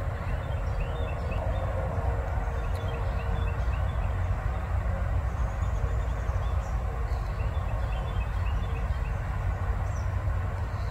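Steady low rumble of wind buffeting the microphone, with faint bird chirps in short runs of several notes.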